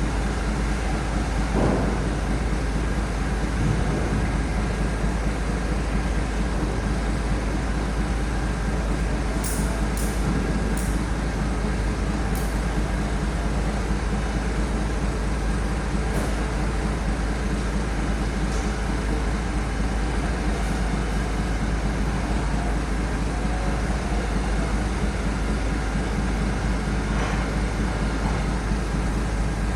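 Heavy vehicle's engine running steadily as a low drone, with a few short high clicks about ten seconds in.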